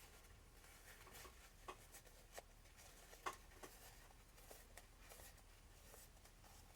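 Faint, scattered small clicks and taps at irregular intervals, the sound of small RC shock parts being handled and set down on a workbench, over a quiet room background.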